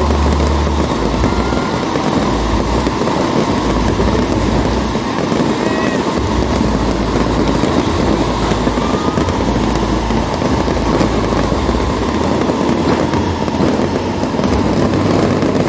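A fireworks display going off without pause: dense crackling and popping over deep, rumbling booms that swell and fade.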